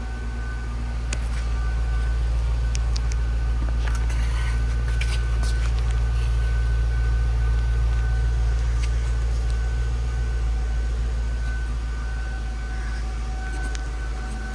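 2002 Ford Thunderbird's 3.9-litre V8 idling steadily, heard from near the exhaust tip, getting louder toward the middle and easing off near the end. A thin steady whine sits above the exhaust, with a few light clicks.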